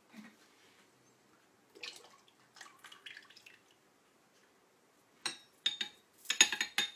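Liquid being emptied from a glass jug into a stainless-steel mixer bowl. It starts with faint splashing, then a quick run of sharp drips and clinks with a short metallic ring in the last two seconds.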